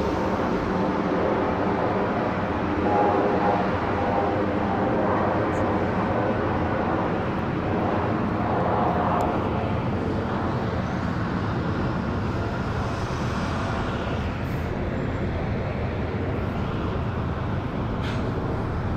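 Airbus A300 twin-engine jet airliner passing overhead: a steady broad rush of engine noise with faint whining tones, easing slightly toward the end.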